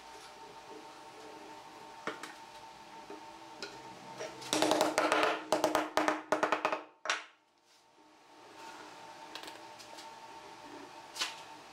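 Wooden mallet rapping on a pine board, a quick run of sharp knocks for about two and a half seconds mid-way, tapping glued boards into place. Single lighter knocks come before and after it.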